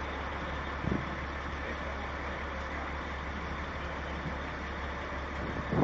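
Truck engine idling with a steady low rumble. There is a short knock about a second in and another right at the end.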